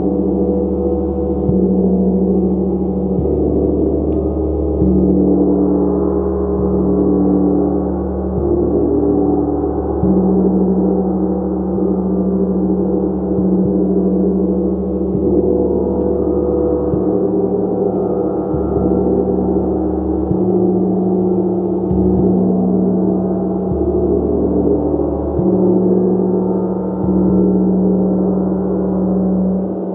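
Gong played continuously: a loud, dense wash of many overlapping ringing tones, the deep ones swelling and fading every second or two as the gong is struck again.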